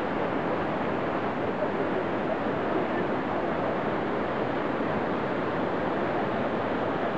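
Steady rushing of water: a waterfall spilling down a rock face into a fast mountain river, an even noise with no breaks.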